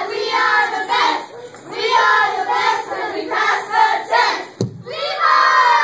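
A group of children chanting their team cheer in unison, in short phrases. Near the end there is a brief pause and a single thump, and then a crowd of children breaks into cheering and shouting.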